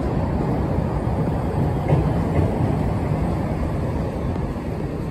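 CTA 'L' elevated train pulling into the station platform: a steady, loud low rumble of the cars running on the steel track.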